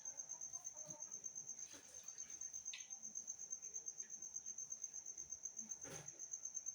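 Insect trilling: a steady, high-pitched pulsing chirp at about seven pulses a second, with one sharp click near the end.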